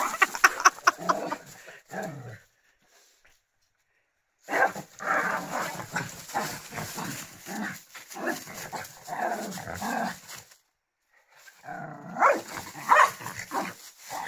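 Small terrier dogs play-fighting, barking and growling at one another in three stretches of sound, which cuts out completely twice.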